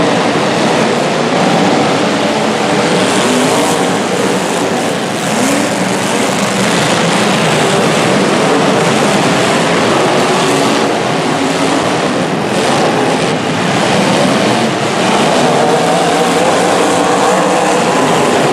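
Several demolition derby cars' engines running and revving hard at once, with a few crashes of metal on metal along the way.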